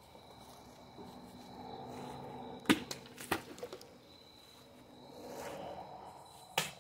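Sword cuts: a few sharp cracks of a blade striking a target, two close together and one near the end, with faint swishes between.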